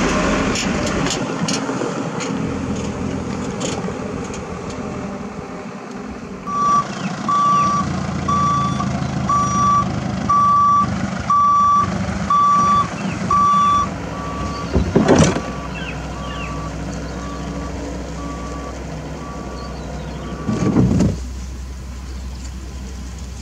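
A dump truck's reversing alarm beeping at one steady pitch about once a second, over a steadily running heavy engine. The beeps start about a quarter of the way in, grow fainter past the middle and stop shortly before the end. Two short louder bursts stand out, one in the middle and one near the end.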